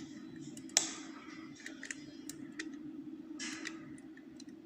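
Small metallic clicks and scrapes of lever-lock picking tools working inside an ERA 5-lever curtained lock, with one sharper click about a second in and a short scrape past the middle. A steady low hum sits underneath.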